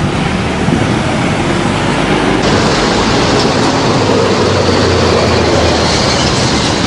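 Steady road-traffic noise from a large vehicle going by, with its engine's low drone under the rush of tyres and air.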